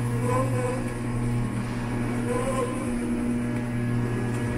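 Lantech Q300 turntable stretch wrapper running a wrap cycle: a steady motor hum as the turntable rotates the load, with a short warbling tone that comes back about every two seconds.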